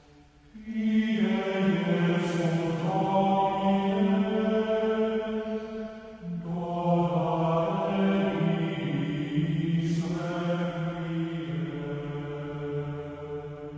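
Gregorian-style plainchant sung by male voices, long held notes in slow phrases with a short break about six seconds in.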